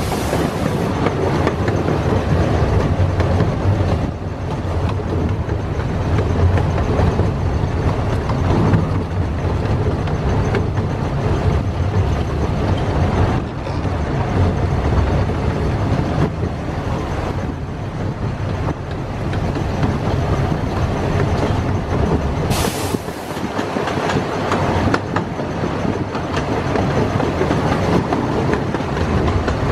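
Miniature park train running along its track, heard from one of its open cars: a steady rumble of the wheels on the rails with clacking. A short hiss about three-quarters of the way through.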